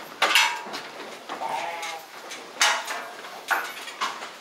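Sheep bleating, with a few sharp knocks and rattles from the metal weighing crate as the ram is handled in it.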